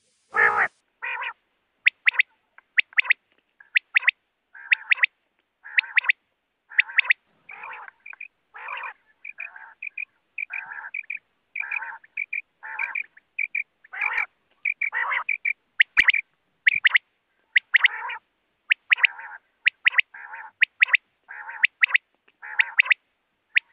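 Quail calling over and over: short, sharp high calls, often in quick pairs or threes, mixed with lower, rougher notes, with brief silent gaps between calls. A single sharp click about 16 seconds in.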